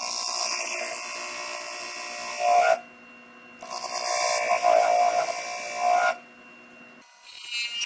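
A hand tool pressed against a small wooden bowl turning on a lathe, cutting to true up an off-line basket-weave groove, in two passes of about two and a half seconds each.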